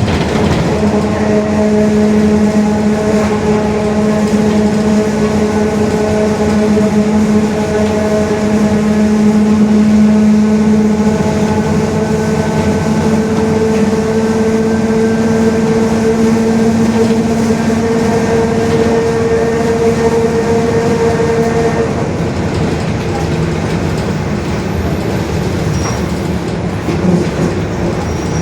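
Rear differential of a Mercedes-Benz OF-1721 city bus droning very loudly on the move: a steady gear whine of several tones that climbs slightly in pitch, then fades away about 22 seconds in, over the bus's running rumble.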